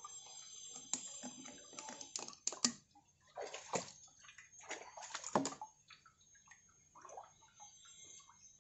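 Water splashing and dripping as it is emptied out of a grey koi-pond pump's housing and outlet, with a few sharp knocks from the plastic pump being handled and set down on a wet concrete ledge.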